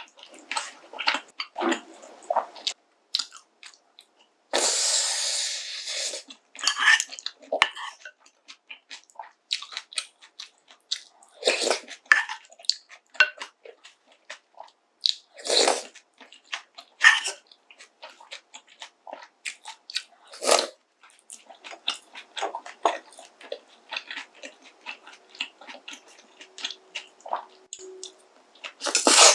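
Close-miked eating of pork kimchi stew with noodles and rice: irregular chewing and mouth clicks with scattered sharp clicks, and one longer noisy stretch about five seconds in.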